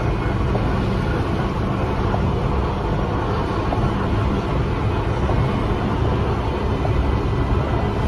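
Plow truck driving on a snow-covered road, heard from inside the cab: a steady low engine and road drone with no change in pace.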